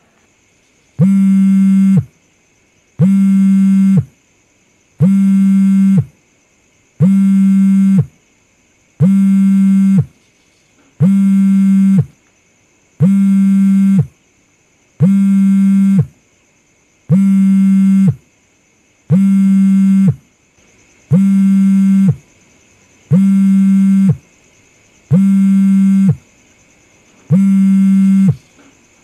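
Smartphone buzzing on vibrate for an incoming call: one-second buzzes every two seconds, about fourteen in a row.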